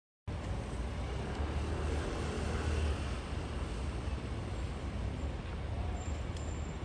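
Steady outdoor traffic noise with a deep low rumble, cutting in suddenly just after the start.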